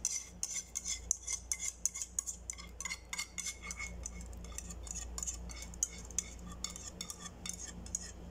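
A spoon clinking and scraping against cookware in quick, irregular taps, several a second, over a low steady hum.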